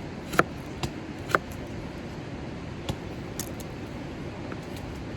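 A few sharp clicks and taps, about five, the loudest about half a second in, over a steady background hiss.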